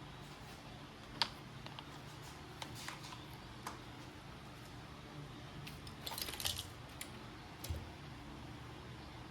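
Scattered light clicks and clatter of small hard objects being handled, with a short burst of rattling a little past the middle, over a faint steady low hum.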